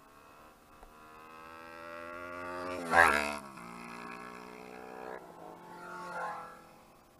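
Motorcycle engine accelerating hard, its pitch climbing for about two seconds to a loud peak, then dropping and holding steady. A second short burst of revs comes near the end as it passes close by.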